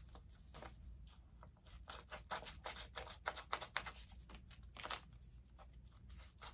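Scissors snipping through a vinyl decal's transfer tape and paper backing, trimming off the excess in a series of short, quick snips.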